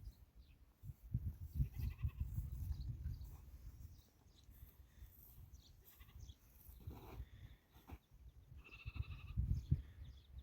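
Sheep bleating, with a short call about two seconds in and a longer one near the end, over a low rumbling noise.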